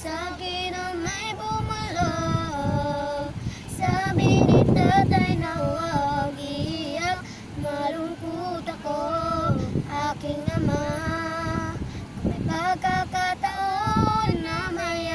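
A young girl singing a slow Tagalog song unaccompanied, with long held notes that waver. A brief low rush of noise cuts in about four seconds in.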